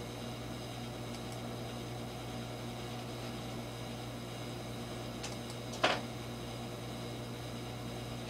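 Room tone: a steady low hum with an even hiss, broken once by a brief click about six seconds in.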